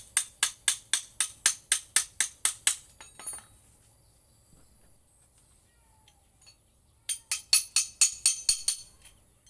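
Rapid, evenly spaced sharp taps or clicks, about six a second, in two runs of a few seconds with a quiet pause between, from hand-tool work freeing the armature of a Hitachi angle grinder during disassembly.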